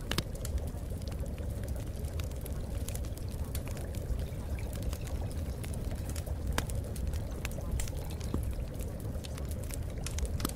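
Steady watery rushing noise with many small scattered clicks and crackles, like water pouring or trickling.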